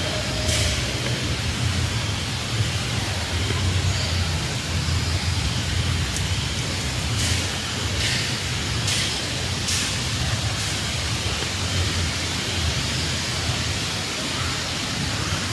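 Steady outdoor noise: a low rumble under an even hiss, with a handful of short sharp clicks or rustles, most of them clustered around the middle.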